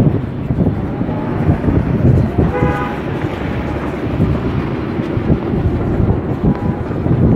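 Gusty dust-storm wind buffeting the microphone over the rumble of passing trucks, with one short vehicle horn toot about two and a half seconds in.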